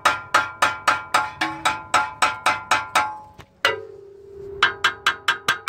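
Catalytic converter on a 2003 Ford Expedition's exhaust being tapped rapidly, about five or six metallic taps a second with a ringing tone, a short pause past the midpoint, then another run of taps. This is the original converter, tapped to judge its insides, and it sounds thicker than the hollow-sounding universal replacement.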